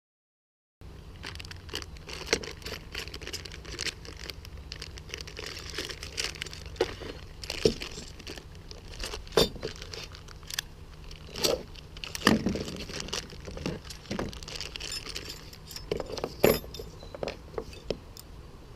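Metal bicycle hand tools clinking, knocking and rattling as they are picked up and handled in a tool kit case, in irregular sharp clicks over a low steady hum. There is a brief moment of silence right at the start.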